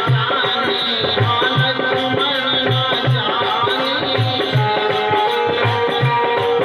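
Instrumental stretch of a Bundeli devotional song: hand-drum beats about twice a second with a shaken rattle under held melody notes.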